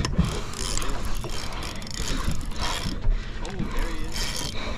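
Fishing reel working line under a fish, with a rapid mechanical clicking from its gears.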